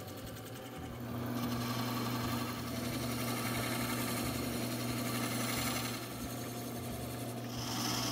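Wood lathe running with a steady motor hum while a turning chisel cuts into a spinning apple-wood blank, a hissing scrape of shavings coming off. The cutting gets louder about a second in.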